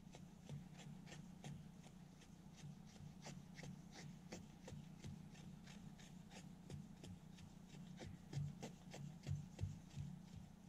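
Kukri machete blade shaving feather-stick curls off a stick of soft wood: a run of faint, short scrapes and ticks, with a few louder knocks about eight seconds in.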